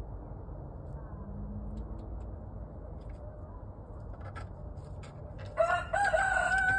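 A rooster crowing near the end: a short choppy start, then one long call held at a steady pitch, over a low rumble.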